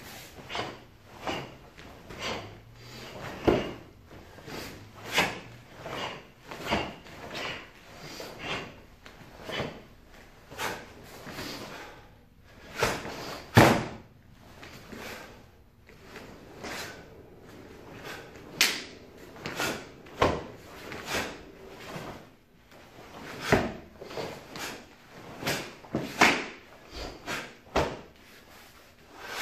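Sharp snaps and thuds of a karate kata performed barefoot on foam mats: the cotton gi snapping with each strike and block, and feet stamping and sliding on the mat. They come at an irregular pace, roughly one to two a second with short pauses, and one is much louder about 13 s in.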